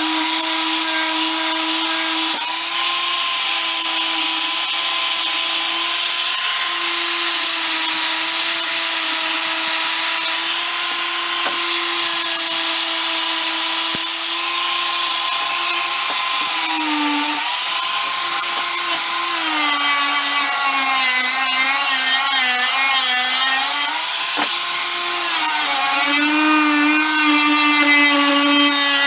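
Handheld electric power tool running continuously at high speed, its motor pitch sagging and recovering several times as it is pressed into the work, over a harsh abrasive hiss typical of grinding, sanding or wire-brushing during restoration.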